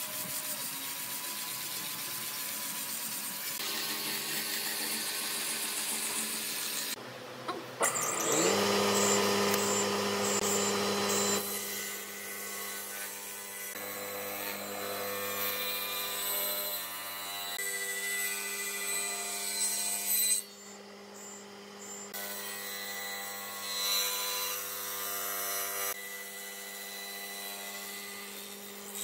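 Power tools working pine, in short cut-together shots. First an angle grinder with a sanding disc on the wood. About eight seconds in, a stationary woodworking machine such as a saw or planer spins up and then runs steadily at one pitch.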